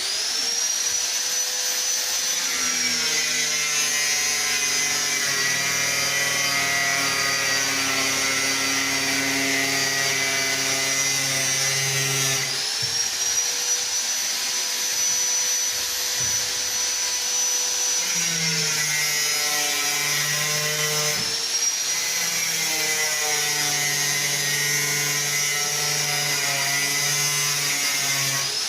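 Handheld electric power tool running at high speed, its motor whining steadily, with the pitch sagging and recovering a few times as the load changes. It starts abruptly and begins to spin down at the very end.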